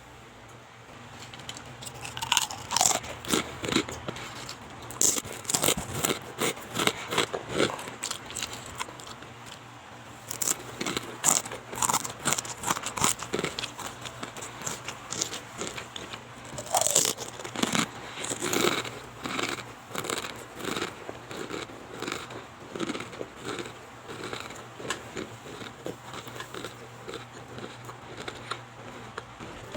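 Mr. Chips snack chips being bitten and chewed: a dense run of irregular sharp crunches that begins about two seconds in.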